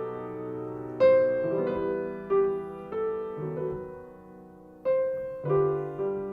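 Solo piano playing slowly, notes and chords struck and left to ring out, a new one about every second.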